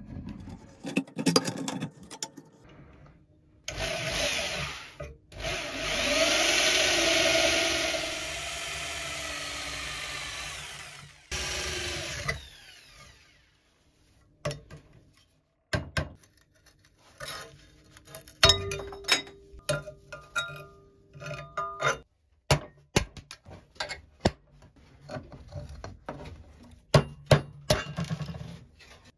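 A power drill runs for several seconds, its pitch wavering as it cuts into the steel rivets of a sapper shovel blade. Later comes a long series of sharp metallic hammer blows on a punch, driving out the rivets.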